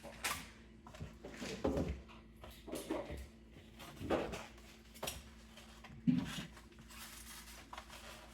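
Kitchen items being handled and set down during cleaning: a series of knocks and clatters about once a second, some with a rustle, over a faint steady hum.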